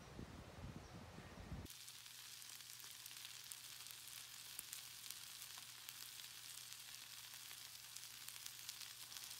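Egg frying in a pan of stir-fried cabbage and bacon: a steady sizzling hiss with fine crackles, with a faint steady hum beneath. It starts abruptly about a second and a half in, replacing a low outdoor rumble.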